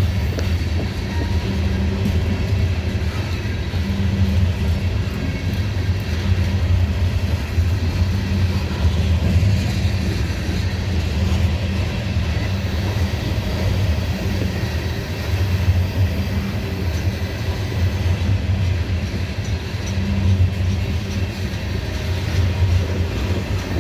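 Loaded coal train rolling past: a steady low rumble of the coal cars on the rails.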